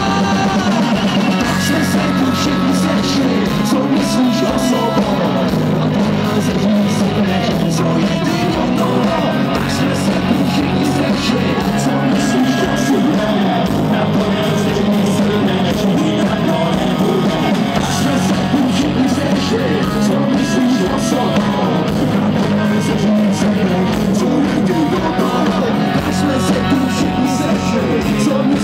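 A rock band playing live, loud and steady, with sung vocals over electric guitar and bass guitar.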